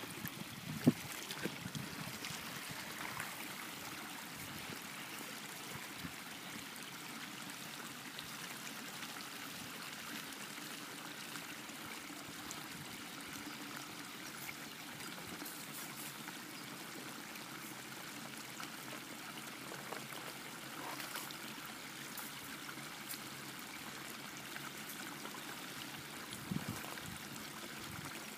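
Steady running water of a stream or river, an even rushing. A sharp knock about a second in and a softer one near the end.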